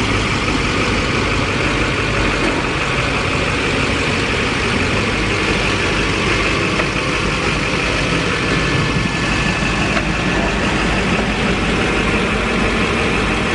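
A vehicle engine running steadily, with a constant rushing noise and no pauses or sudden events.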